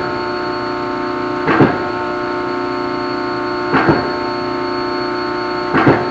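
Press brake running with a steady many-toned hum while steel is being bent, broken by short noisy bursts, some in quick pairs, about every two seconds.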